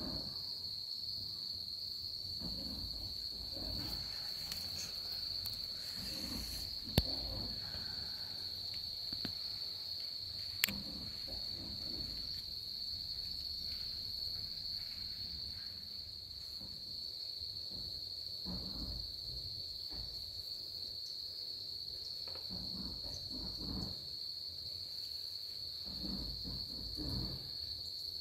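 Insects chirring steadily in one high, unbroken pitch. Two sharp clicks cut through it, one about seven seconds in and another almost four seconds later, with faint rustling beneath.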